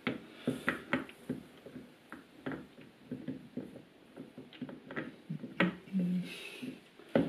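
Irregular light clicks and knocks of metal parts as a motorcycle clutch basket with its primary driven gear is worked by hand back onto the engine's shaft.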